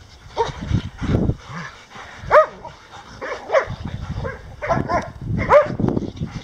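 Bouviers des Flandres and a Portuguese Water Dog barking in rough play. There are short barks every second or so, the loudest about two and a half seconds in and again near the end.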